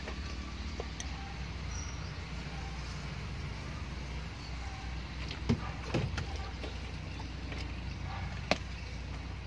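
Water poured from a plastic jug into a plastic spray bottle, with a few sharp knocks of plastic being handled, the sharpest near the end, over a steady low rumble.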